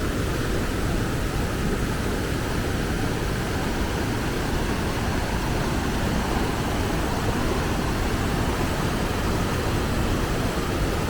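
Steady, loud roar of rushing river water and waterfalls, an even noise with no breaks.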